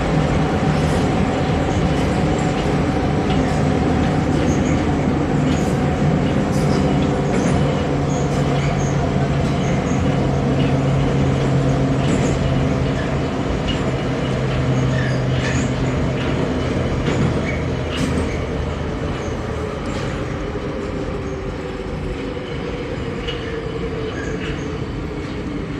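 Inside an 81-717.5M metro car running through the tunnel: a steady traction-motor hum over rumbling wheel and rail noise, with scattered sharp clicks. In the second half the hum sinks a little in pitch and the noise eases, and the strongest hum note drops out about eighteen seconds in, as the train slows.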